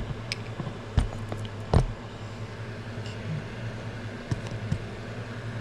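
Steady hum of an electric fan, with a few sharp clicks and knocks of small hard parts being handled as screws are taken out. There are three louder clicks in the first two seconds and a couple of fainter ones later.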